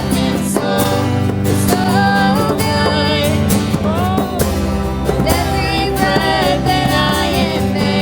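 Worship song played by a live band: a singer's voice over guitar, a steady bass and drum hits.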